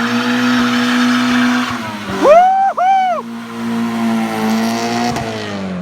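Car engine running at high revs with a steady pitch, with two short tire squeals about two seconds in. The engine pitch shifts slightly near the end.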